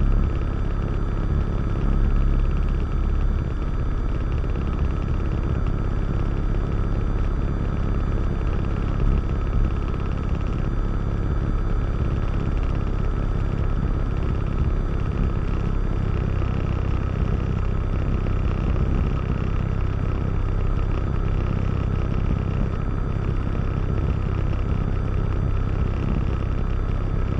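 Diamond DA20-C1's four-cylinder Continental IO-240 engine and propeller running steadily in flight, a constant drone heard from inside the cockpit.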